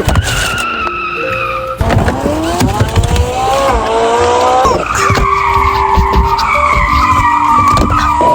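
Car tyres squealing with a high, slowly falling screech, then an engine revving up in rising pitch from about two seconds in, and a second long tyre squeal from about five seconds in: the sound of a car being driven hard and skidding through turns.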